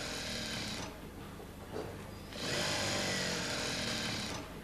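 Industrial sewing machine running in two spells, the first about a second long and the second about two seconds, with a short lull between.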